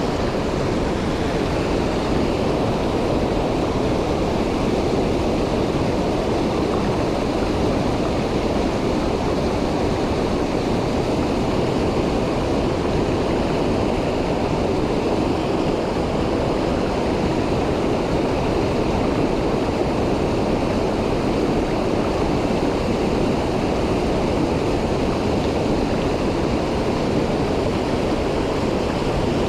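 Mountain stream rushing over rocks: a steady wash of running water that does not change.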